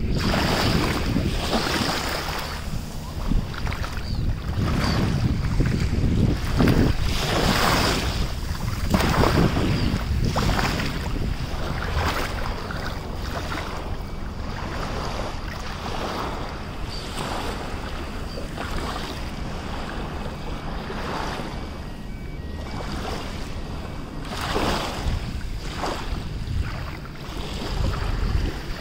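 Small waves lapping at the shoreline and shallow seawater sloshing around bare feet wading through it, in irregular swells every second or two, with wind rumbling on the microphone.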